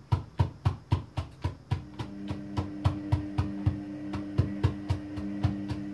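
Walnuts being crushed with rapid, even strikes, about four a second. A steady hum comes in about two seconds in.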